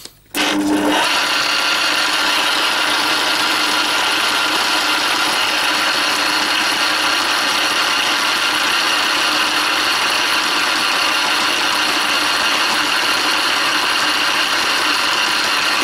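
Metal lathe running: the motor and gear train start abruptly about half a second in and then run at a steady speed, with a whine of several steady tones, while the tool turns a diameter on a scrap metal bar.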